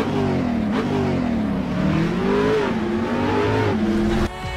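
A car engine being revved over and over, its pitch rising and falling several times. Near the end it cuts off abruptly and music begins.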